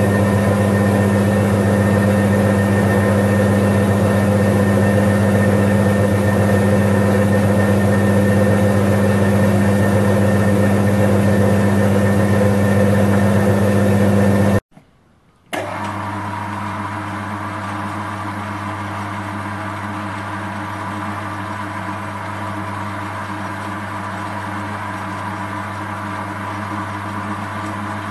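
Small horizontal metal-cutting bandsaw running steadily with a motor hum while cutting metal bar stock clamped in its vise. About 15 seconds in the sound cuts off for a moment, and a quieter steady machine sound follows.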